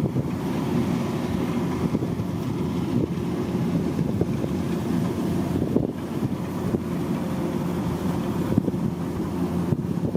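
A rice harvesting machine's engine running steadily, with wind noise on the microphone.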